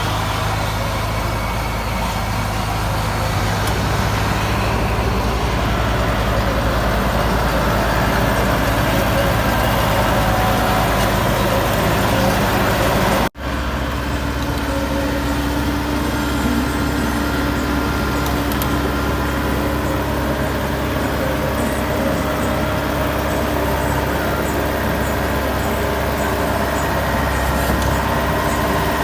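Rice combine harvester's diesel engine and threshing machinery running steadily at working speed. About 13 seconds in, the sound breaks off for an instant and resumes with a harvester engine running at a lower, different pitch.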